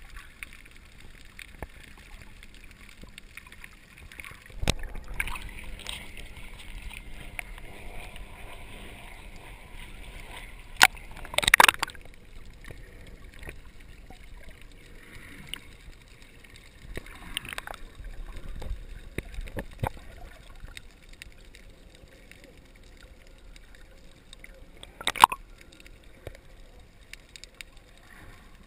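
Muffled water sloshing and gurgling heard underwater through an action camera's waterproof housing, with a few sharp knocks, the loudest near the middle and about three-quarters of the way through.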